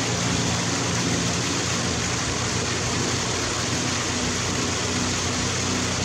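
Waterfall cascading over a rock ledge into a pool: a steady, even rush of falling water.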